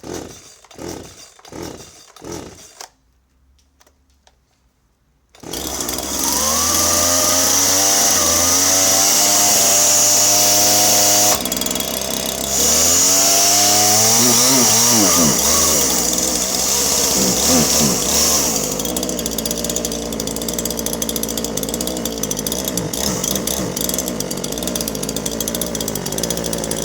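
Husqvarna 137 two-stroke chainsaw pull-started with several quick cord pulls, catching about five seconds in. It then runs at high revs with the pitch wavering, dips briefly, and surges up and down before settling to a lower, rougher running. It runs badly, which the owner puts down to a rich mixture or hunting.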